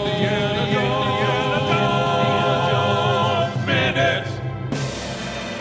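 Sung theme jingle ending on a long-held chord of voices in harmony, then a short figure and a final percussive hit about four and a half seconds in that rings out and fades.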